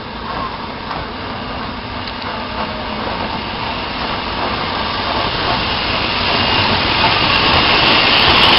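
BR Standard Class 9F 2-10-0 steam locomotive 92212 running slowly tender-first past the platform: a steady rush of noise that grows louder as it draws level, with hissing steam building near the end.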